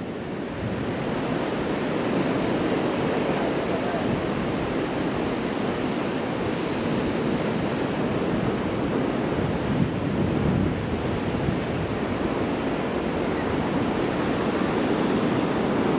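Sea surf washing against coastal rocks, a steady rushing noise mixed with wind.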